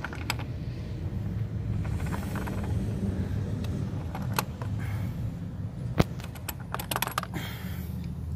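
A metal wrench clicking and clinking against engine parts as it is worked onto the oil filter housing. The clicks are scattered, the sharpest about six seconds in and several close together just after, over a steady low rumble.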